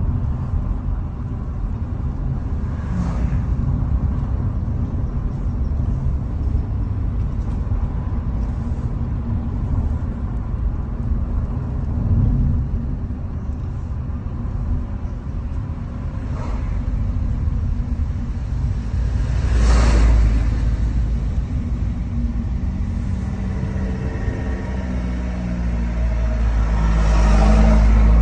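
Steady low rumble of a car's engine and tyres on asphalt, heard from inside the cabin. It swells about two-thirds of the way through and again near the end.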